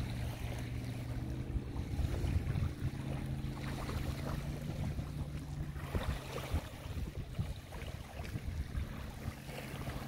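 A motorboat engine running steadily, a low hum, with wind buffeting the microphone and small waves lapping at the shore.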